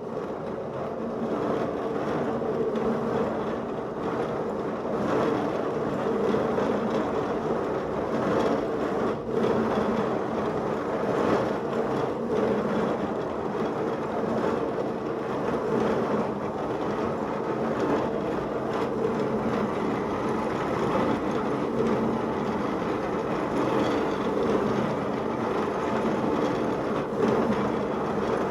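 Motor-driven wave-motion automaton mechanism running at a steady speed, a constant mechanical whir of motor and gears that comes on suddenly.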